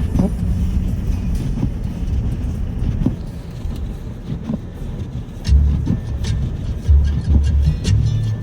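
A car driving, a steady low rumble, with background music over it whose bass notes grow louder about two-thirds of the way in.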